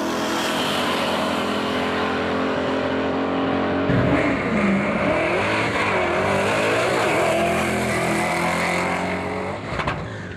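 Drag race cars' engines at full throttle. One car is accelerating away down the strip. Then, about four seconds in, another car's engine revs up and down unevenly at the launch and pulls steadily down the track, fading near the end.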